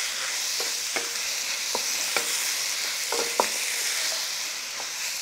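Tomato wedges and aromatics sizzling in a wok with a steady hiss as a wooden spatula stirs them, with several light taps and scrapes of the spatula against the wok.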